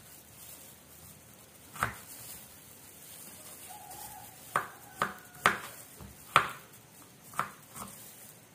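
Kitchen knife slicing shallots on a plastic cutting board: sharp knocks of the blade against the board, about seven in all, unevenly spaced, with most of them in the second half.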